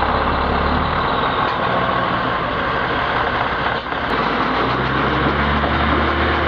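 Heavy-haul truck engine running under load, a steady diesel drone with road noise; about two-thirds of the way in, a clearer steady engine note comes through.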